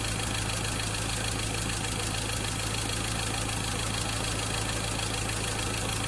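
Ford Ranger's 2.2-litre four-cylinder diesel engine idling steadily.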